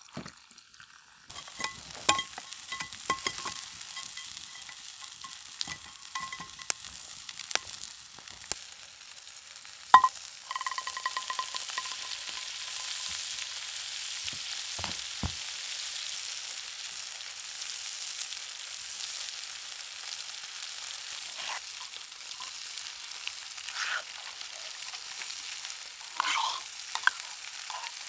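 Food sizzling as it fries in a pan, with the clicks and scrapes of a utensil stirring it. The steady sizzle starts about a second in.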